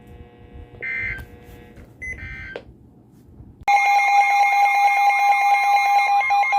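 Emergency Alert System signal from a NOAA Weather Radio: two short screeching digital data bursts about a second and a half apart, then, a little over halfway through, the loud, continuous alert tone begins.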